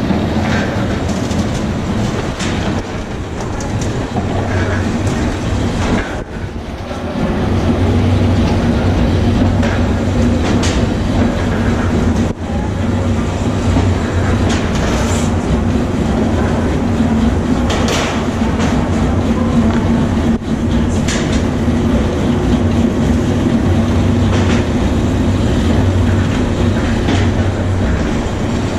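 Factory machinery, including a nougat-cutting machine, running with a steady low hum and rattling clatter. The hum dips briefly about six seconds in and returns stronger. Sharp metallic clanks of metal trays come now and then.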